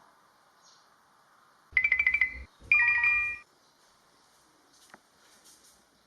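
An electronic signal: a quick run of about eight short beeps, then a brief chime of several held tones, each lasting under a second.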